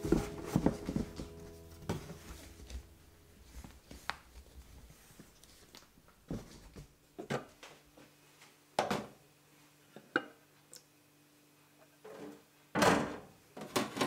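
Soft knocks and thuds as books are handled and packed into cardboard boxes. After a pause come scattered clinks, then a short scraping rush and a clink near the end as the lid is taken off a stainless thermal-cooker pot of simmered beans.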